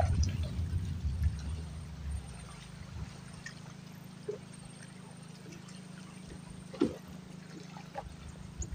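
Faint water trickling and lapping over a low steady hum, with a few soft clicks. A louder low rumble fades out over the first couple of seconds.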